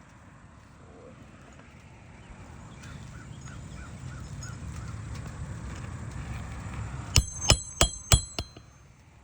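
Hammer driving a roofing nail through an asphalt shingle: five quick, sharp metallic strikes with a ringing note, about three a second, late on. Before them a low rumble swells and fades.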